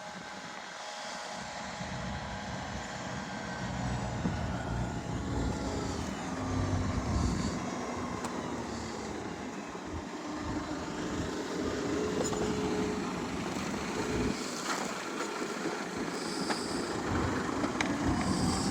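A motor vehicle running: a low rumble with faint tones that slide in pitch, slowly growing louder.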